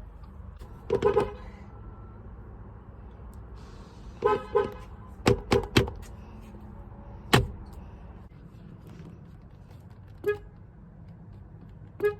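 A car horn sounding in short honks: a quick double honk, another double, three fast beeps, then single honks a few seconds apart.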